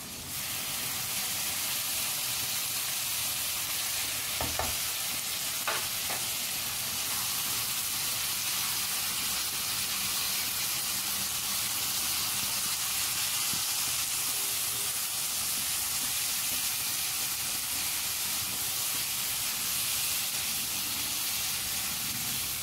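Marinated chicken pieces sizzling steadily in hot oil and tomato masala in a non-stick wok as they are stirred with a silicone spatula. The sizzle swells just as the chicken goes into the pan, and there are two brief knocks about four and six seconds in.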